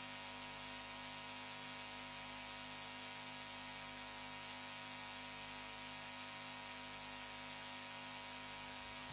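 Steady electrical mains hum with a faint hiss and no speech, as on a live sound feed whose microphone has cut out.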